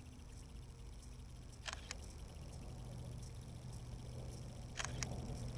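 Two brief, sharp clicks about three seconds apart, the second followed closely by a fainter one, over a faint steady low hum.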